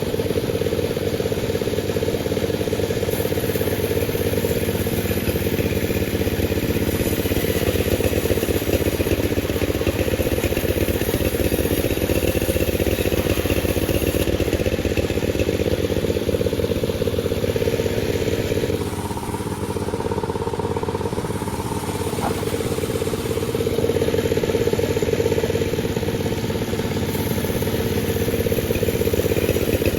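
Panda36 two-stroke chainsaw running hard while sawing a durian log. It eases off for a few seconds about two-thirds of the way through, then picks up again.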